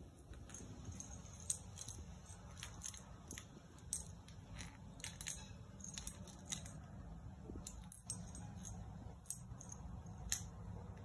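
Small plastic lighter clattering and tapping on stone floor tiles as kittens bat at it: irregular sharp clicks, a dozen or more, over a faint low background rumble.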